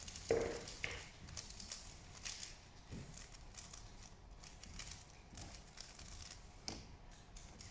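Faint scattered clicks and taps, with a louder short knock about a third of a second in, against quiet room tone.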